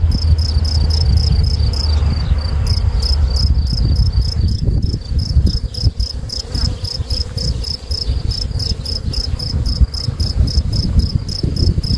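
Cricket chirping steadily and evenly, about three to four short high chirps a second, over a low, uneven rumble.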